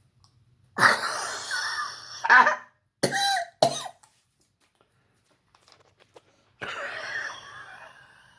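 A man coughing on purpose: one long, harsh cough about a second in, then two short coughs around three seconds in. Near the end comes a long forced exhale with a thin whistling tone in it.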